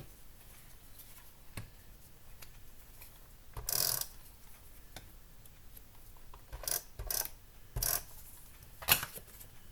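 Paper and small craft supplies being handled on a desk: a brief papery rustle about four seconds in, then four or five short sharp taps and clicks as pieces are set down and pressed into place.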